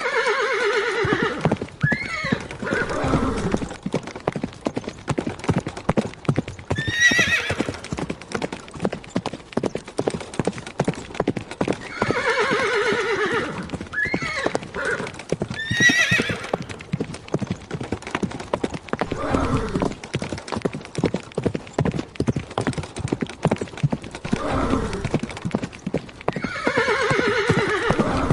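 A ridden horse's hooves clip-clopping in a quick, steady rhythm throughout. The horse whinnies near the start, about 12 seconds in and near the end, with shorter high calls around 7 and 16 seconds.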